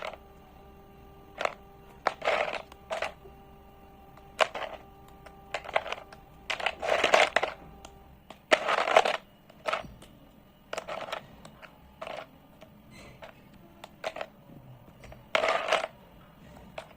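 Slate pencils crunching close to the microphone as they are bitten and chewed, in a dozen or so short, irregular crunches with quiet gaps. The longest, loudest crunches come around the middle. A faint steady hum sits underneath.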